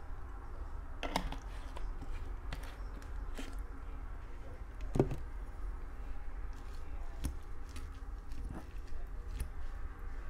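Scattered light clicks and taps from handling a plastic salad dressing bottle and its cap and a fork against a plate of salad, with one louder knock about five seconds in, over a steady low hum.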